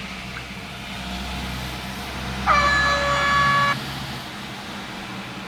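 Stadium air horn sound effect played from an Android app through a phone speaker: one blast of just over a second, about halfway through, over a steady low hum.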